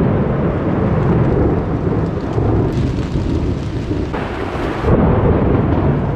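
A long roll of thunder, a low rumble lasting several seconds that swells again about four to five seconds in, over heavy rain on a dome tent, heard from inside the tent.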